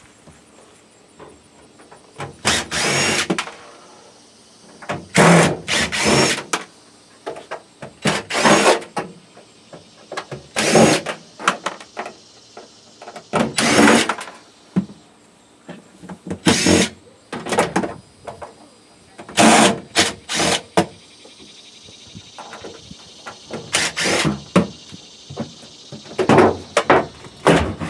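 Power drill running in about ten short bursts of a second or so each, speeding up and slowing down each time, as it backs out the screws that hold a freezer's inner back panel.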